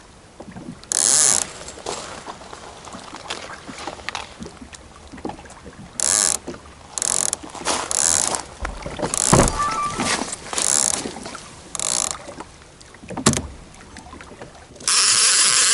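Baitcasting reel's clicker buzzing in short, irregular spurts as a fish pulls line off a rod sitting in its holder: the sign of a catfish bite. A sharp knock comes shortly before the end, then a longer buzz.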